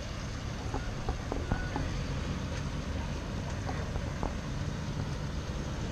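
Steady rumble of wheels rolling on asphalt and wind on the microphone while riding along a road, with scattered light clicks and rattles.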